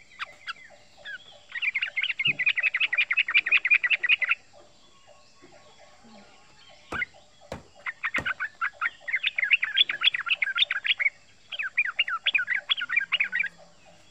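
Male yellow-vented bulbul singing its fast chattering 'ropel' call, long runs of rapid sharp notes: one run early, then two more in the second half. A few sharp clicks fall between the runs.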